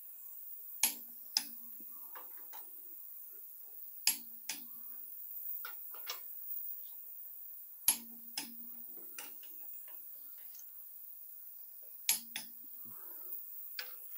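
Click-type torque wrench tightening the cylinder head bolts of a Ford 302 V8 on the final 70 foot-pound pass. Each pull ends in a sharp double click, the sign that the set torque has been reached. There are four such double clicks, about four seconds apart, with softer clicks in between.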